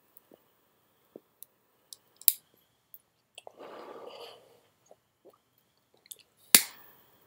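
Man drawing on a cigar while lighting it: small soft lip pops as he puffs, a short breathy exhale of smoke about four seconds in, and two sharp lighter clicks, the louder one near the end.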